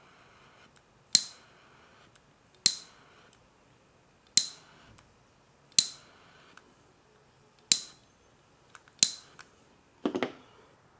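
Hand crimping tool snapping shut on wire butt connectors: six sharp metallic clicks, about one every second and a half, then a short rustle of wire being handled near the end.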